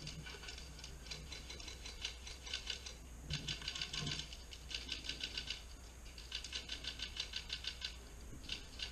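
Distant airsoft guns firing on full auto: rapid, evenly spaced high clicking in repeated bursts of about a second, with short gaps between them.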